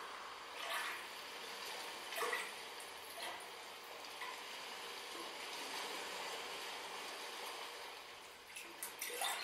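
A faint, steady hiss with a few soft ticks, like trickling and dripping water, in a quiet passage of an ambient music track. The ticks come about a second in, again twice more soon after, and in a short cluster near the end.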